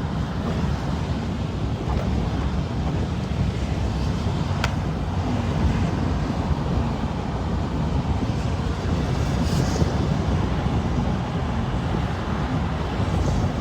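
Steady road noise inside a moving pickup truck's cabin: a low rumble of engine and tyres, with a single short click about four and a half seconds in.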